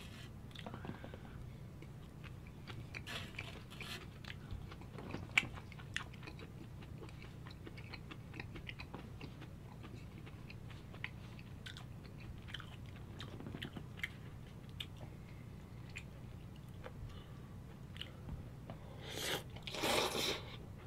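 Close-miked eating sounds: steady chewing with many small wet mouth clicks, then near the end a loud slurp of jjamppong noodles.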